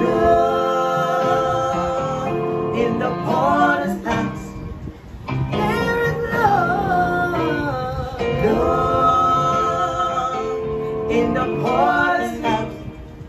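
A man and a woman singing an old gospel choir song as a duet, with long held notes and wavering vocal runs.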